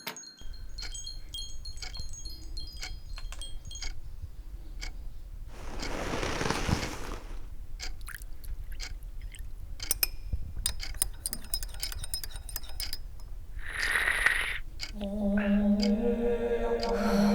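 Wind chimes tinkling, mixed with a scatter of sharp clicks and ticks and two soft whooshing swells. A low, steady droning tone comes in near the end.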